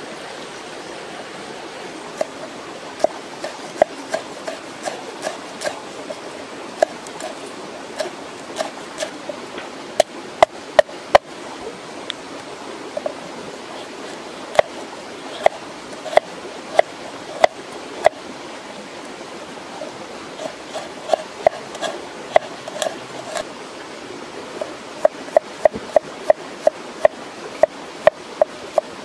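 Large knife chopping herbs on a round wooden chopping board: sharp knocks of the blade on the wood in runs of quick, even strokes, about three a second, with short pauses between runs. Under them is a steady rushing noise.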